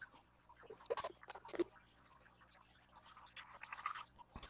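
Heavy whipping cream poured from a carton into a stainless steel mixer bowl, a soft trickle about three seconds in, preceded by a few small clicks and rustles from handling the carton.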